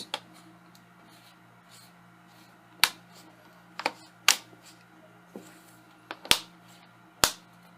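Plastic clips of a laptop's front screen bezel snapping into place as it is pressed on: several sharp clicks, about one a second, through the second half.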